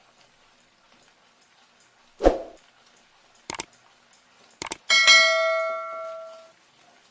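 Metal cooking utensils clinking while halwa is stirred in a pan: a dull thump a couple of seconds in, a few light clicks, then one sharp metallic strike that rings for about a second and a half.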